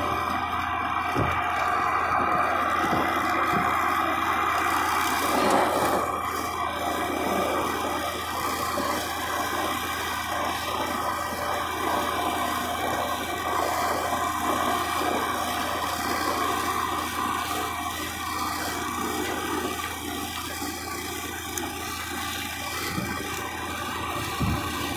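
Tractor engine running steadily while a tractor-mounted Solo Swing swivel disc mower spins and cuts tall grass, a continuous mechanical hum with a rushing hiss of cut grass, a little louder for the first five or six seconds.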